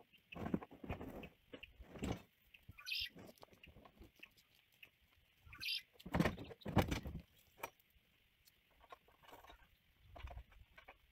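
Scattered knocks and clanks of a metal livestock chute and its gate being handled, the loudest about six to seven seconds in, with two short scraping sounds between.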